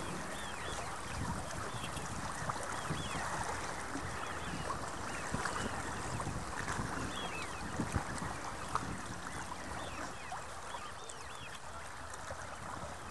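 Lakeside ambience at dusk: wind rumbling on the microphone and water lapping, under a steady chorus of many short distant waterfowl calls.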